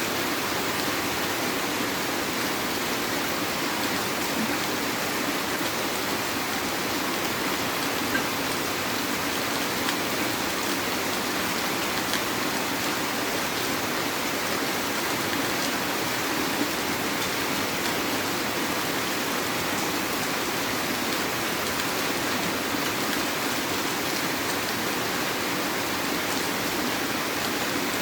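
Heavy rain falling steadily: a dense, even hiss of rain with a few sharper drop ticks.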